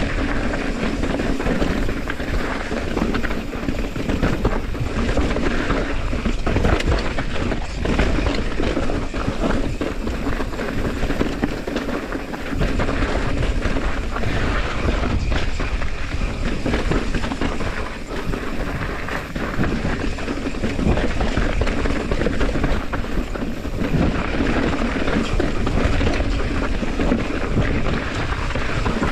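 Mountain bike riding fast over rocky singletrack: a continuous rattle and clatter of tyres rolling over rock and gravel, with many small knocks as the bike jolts over bumps.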